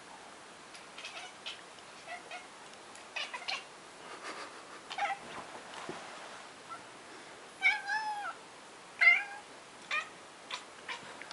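Ginger cat making short chirps and clicks at a fly, the chattering a cat makes at prey it can't reach. They come in scattered bursts, with a longer drawn-out chirping call about eight seconds in and a louder one just after nine seconds.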